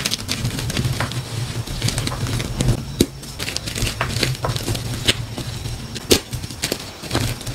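Dyed gym chalk crunching and crumbling as hands squeeze powdery chunks and soft reforms, a dense run of small crackles with a few sharper snaps as pieces break, about three seconds in and again about six seconds in. A low hum runs underneath.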